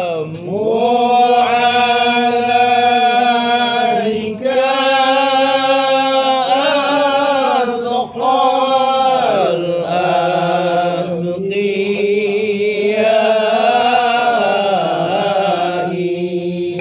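Malay zikir, an Islamic devotional chant, sung by men in long drawn-out melodic phrases on held notes, with short breaks between phrases.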